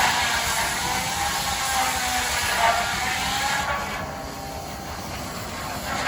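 1912 Case 40 hp steam traction engine letting off steam: a loud hiss with a wavering, whistle-like tone. It cuts off suddenly about two-thirds of the way through, leaving a quieter low running noise.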